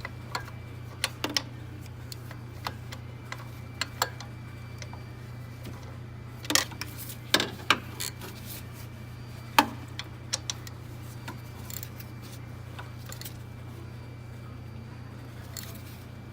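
Wrench and metal tool clicks and clinks, irregular and scattered, with a few louder knocks near the middle, as a power steering pump mounting bolt is tightened. Underneath is a steady low hum.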